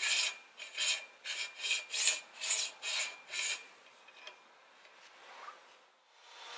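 Rhythmic rasping strokes, about two to three a second, as an aluminium clamping block and its clamping lever are worked against an aluminium tube. The strokes stop after about three and a half seconds and the sound fades out.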